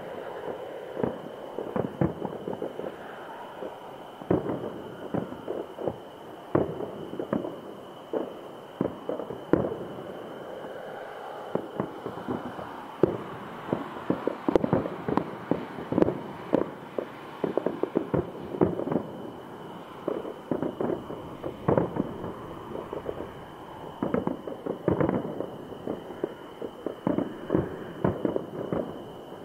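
Aerial firework shells bursting in a rapid, irregular series of bangs, several at a time in the busiest stretches.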